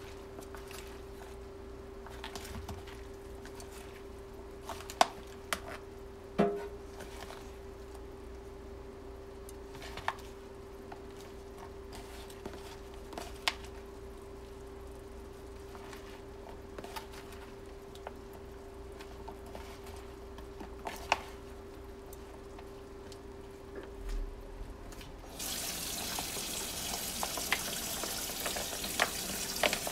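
Scattered light clicks and knocks of a knife and hands working chopped lettuce and tomatoes in a plastic container, over a steady hum. Near the end a kitchen faucet is turned on and water runs into the sink.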